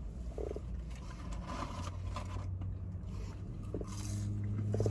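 Faint eating sounds, short chewing and rustling noises, over a steady low hum that grows a little louder about halfway through.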